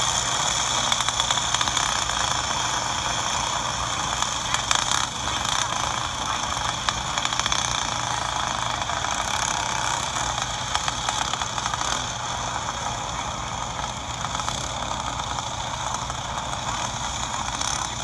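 Several racing go-kart engines droning steadily as the karts run laps on a dirt oval, a thin high-pitched whine, heard as playback through a phone's speaker.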